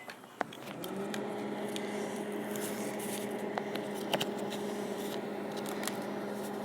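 Microwave oven starting and running with a steady hum: a click about half a second in, then the hum comes on just under a second in and holds, with scattered faint ticks.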